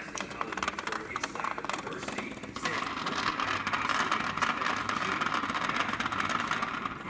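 Vibrating robot bug toy buzzing and rattling as it skitters over a plastic track, a dense patter of tiny clicks; about two and a half seconds in the buzz becomes steadier and louder.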